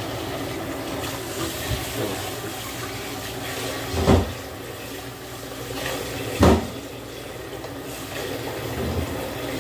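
Kitchen tap running steadily into a stainless-steel sink. Twice, about two and a half seconds apart, there is a loud knock as dishes are handled in the sink.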